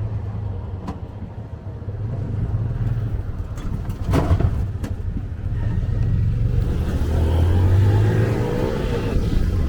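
A motor vehicle's engine running with a steady low rumble. It briefly picks up about seven seconds in, and there is a short sharp noise about four seconds in.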